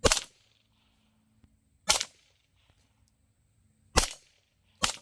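Integrally suppressed 9mm MP5 SD-style guns firing single shots with 115 grain ammunition: four sharp, muffled reports, the first three about two seconds apart and the last coming under a second after the third.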